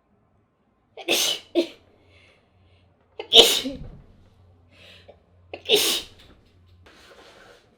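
A woman sneezing three times, about two seconds apart, the first a quick double burst, with faint breaths between. The sneezes are set off by a powder she has sniffed.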